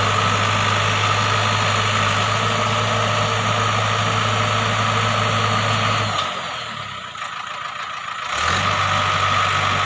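Diesel engine of a JCB 3DX backhoe loader running steadily. About six seconds in it drops away to a quieter hiss for about two seconds, then comes back abruptly.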